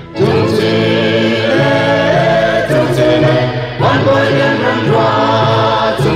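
A group of voices singing a Chin traditional song, choir-like, with a new sung phrase starting about four seconds in.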